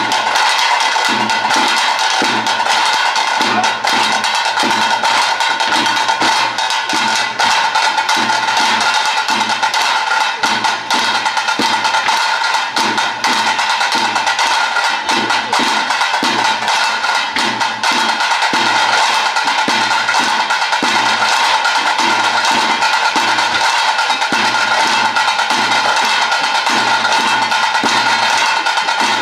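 Music: drums playing a steady, regular beat under a held high tone.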